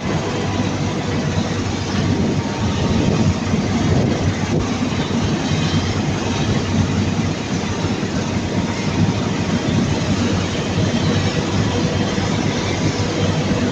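Massey Ferguson 9380 Delta combine harvester running steadily under load while harvesting wheat: a constant engine drone mixed with the clatter and rumble of the threshing machinery.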